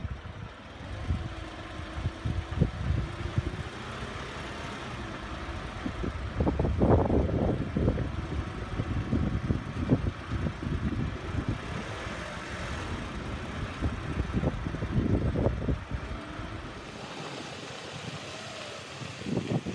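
Car driving on an unsealed gravel road: a steady engine and tyre rumble with frequent thumps and knocks from the rough surface. The deep rumble drops away near the end.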